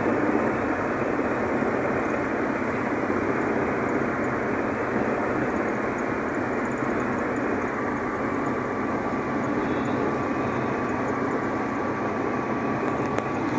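Steady driving noise inside a car's cabin at road speed: tyres on asphalt, wind and engine blending into an even rush. A faint, high, steady whine joins it about two-thirds of the way through.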